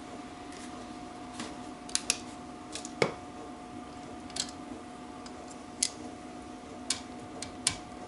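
Scattered sharp metallic clicks and taps, about seven of them and the loudest about three seconds in, from a torque wrench and socket on the BSA B25 crankshaft's nuts as they are tightened to 25–27 ft-lb.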